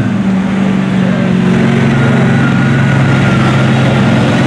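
Engine of a lifted square-body Chevrolet mud truck on paddle tires, running loud at a steady pitch as it pushes through a mud bog.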